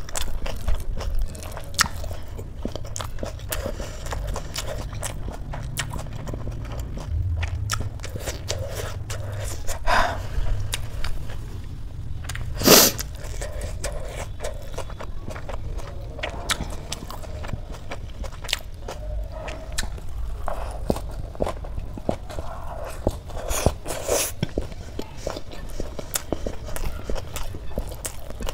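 Close-miked eating: crisp lettuce leaves wrapped around curry being bitten and chewed, with many small crunches and wet mouth clicks. One much louder crunch comes about halfway through.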